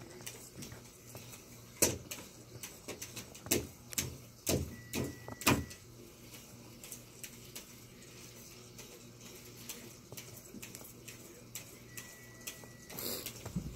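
Kittens scrambling and pouncing on a hard floor: scattered light taps and scratches, with a handful of sharper thumps in the first six seconds.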